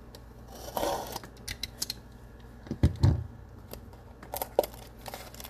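Small handling noises on a tabletop: scattered light clicks and taps, a brief rustle about a second in, and two soft thumps close together around three seconds in.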